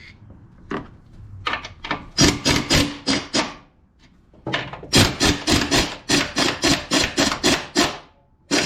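Hand ratchet with a 14 mm socket clicking in quick back-and-forth strokes, about three a second, in several runs with short pauses, backing off the nuts on the strut's top mount.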